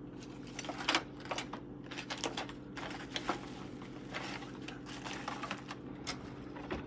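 Irregular clicks and clacks of kitchen things being handled and set down, over a steady low hum.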